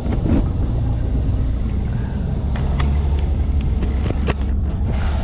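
Boat motor running steadily with a low rumble, under way, with a few light knocks in the middle.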